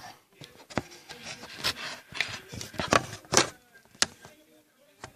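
Irregular light knocks and taps of objects being handled, about seven in all, with soft rubbing between them.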